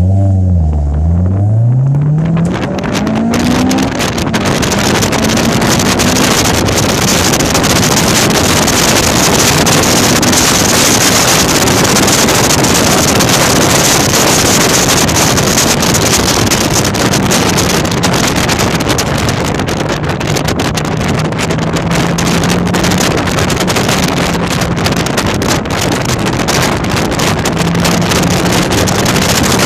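Cabin sound of a Honda S2000's four-cylinder engine with an aftermarket single exhaust and test pipe, heard from inside the car at track speed. In the first two seconds the engine note drops and then climbs again, as with a gear change. After that a loud, steady rush of wind and road noise covers the engine, which keeps a faint steady note underneath.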